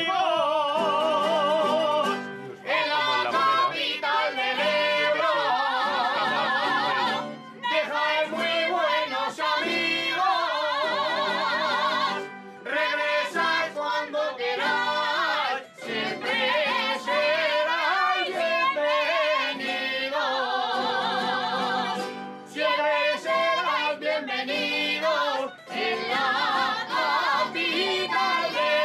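Aragonese jota sung by a woman with strong vibrato, in long held phrases broken by short pauses between lines.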